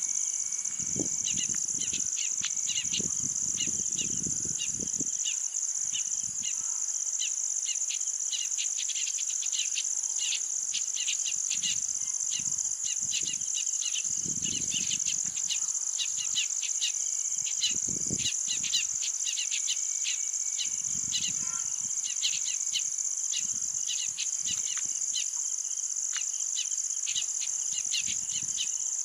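Steady high-pitched drone of insects, with many short bird chirps over it and scattered brief low rumbles.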